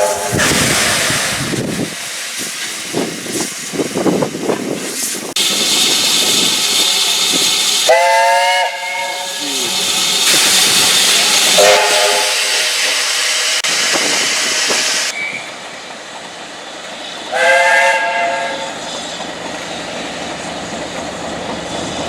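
Train horn sounded in three short blasts, about eight, twelve and eighteen seconds in; the first and last sound a higher and a lower note together. Loud rushing noise from the train runs under them.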